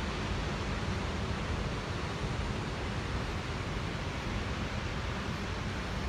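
Steady rushing wind and road noise from a moving vehicle, with a low, uneven rumble.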